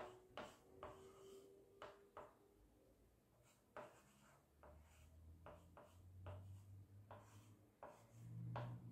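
White and coloured chalk writing on a small blackboard: about a dozen short, separate taps and scratches of chalk strokes at an uneven pace. A faint low hum comes in partway through and grows near the end.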